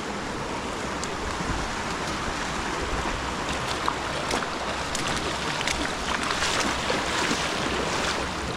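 Steady rush of flowing water from a stream and falls, with scattered light clicks through the second half.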